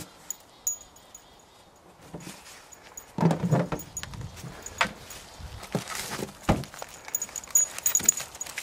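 A dog rummaging in a food cooler: irregular rustling and clattering of packaging and containers, starting about three seconds in, with scattered sharp clicks and knocks.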